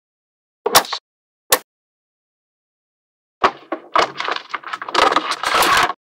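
Small magnetic balls snapping and clicking together. Two sharp clicks come in the first couple of seconds, then a dense rattling clatter of many balls starts about halfway through and grows loudest near the end.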